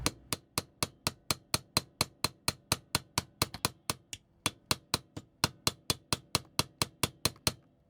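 Small hammer tapping a tool in steady light taps, about four a second, to drive the axle out of a plastic toy's rear wheel. The taps stop shortly before the end.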